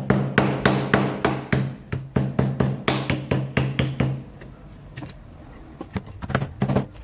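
A motor-driven machine runs with a steady hum and a rapid, regular knocking, about three to four knocks a second. Both stop together about four seconds in, followed by a few light clicks and clinks.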